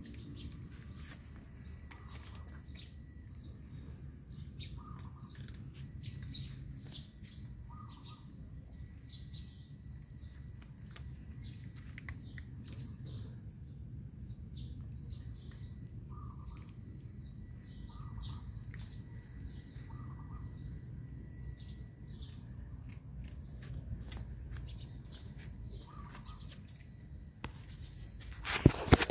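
Small birds chirping in quick, scattered bursts, with a lower short call repeating every few seconds, over a steady low rumble. A sharp knock comes near the end.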